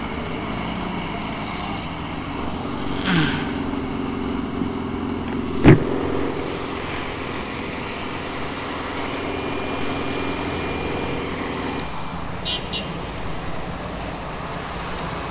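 Motor vehicle running steadily on the road with a constant hum, which changes about twelve seconds in. A single sharp knock sounds about six seconds in.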